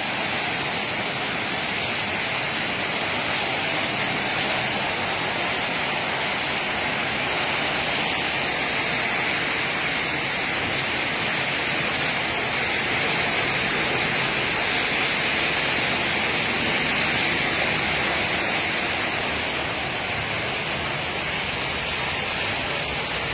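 Rain falling steadily, an even wash of noise that holds constant throughout.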